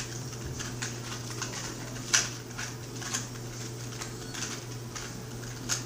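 2x2 Rubik's cube being twisted by hand: irregular plastic clicks and clacks as its layers turn, the sharpest about two seconds in, over a steady low hum.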